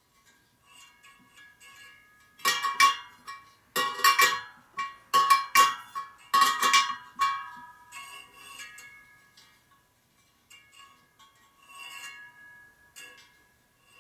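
Steel spokes of a laced motorcycle wire wheel clinking and ringing as they are worked with a spoke wrench during truing. Four groups of loud clinks come about two and a half to seven seconds in, with fainter ones before and after.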